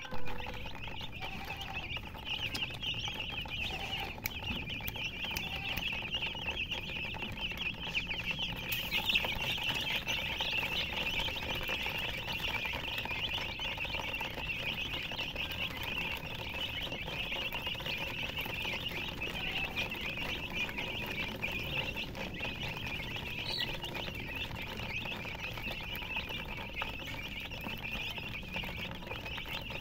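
Many baby chicks peeping continuously, their high chirps overlapping into a steady chorus.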